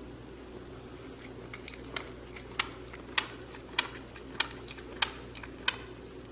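Mini pig grinding its teeth: sharp grating clicks of tooth on tooth, faint at first, then about seven strong ones evenly spaced, a little more than one a second, from about two seconds in.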